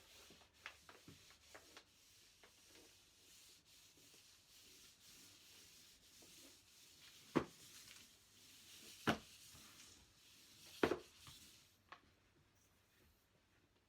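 Quickle Wiper floor mop with a dry sheet rubbing softly across a wooden floor, broken by three sharp knocks about one and a half seconds apart in the middle; the rubbing stops about twelve seconds in.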